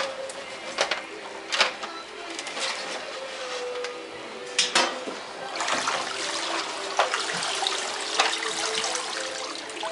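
Water running and splashing in a stainless-steel washing unit, with several sharp knocks along the way. The water grows fuller about halfway through.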